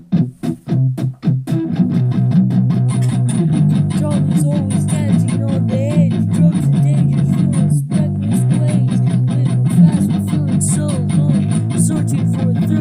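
Music with guitar and bass, opening with a quick run of short hits before the instruments settle into playing steadily.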